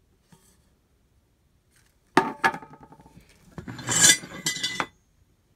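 Small white ceramic flowerpots clinking as they are handled. Two sharp ringing clinks come about two seconds in, then a longer clatter of clinks a little later, loudest around four seconds in.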